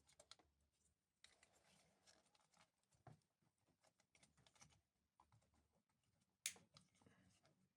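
Near silence, with faint scattered clicks and one sharper click about six and a half seconds in.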